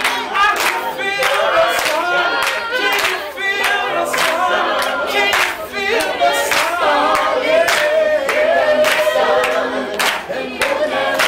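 A group of people singing a song together, with hand claps keeping a steady beat about twice a second.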